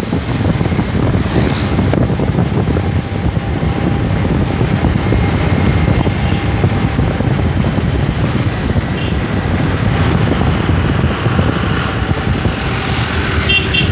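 Steady, loud wind rushing and buffeting over the microphone of a camera moving along a road, with vehicle and road noise underneath.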